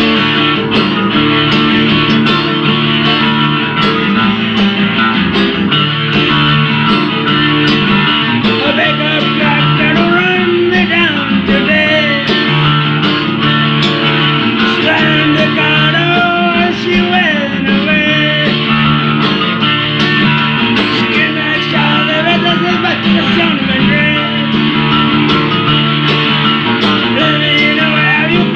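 Rock band playing a song: guitars over a steady drum beat, with a wavering lead line, sung or played, coming in about nine seconds in.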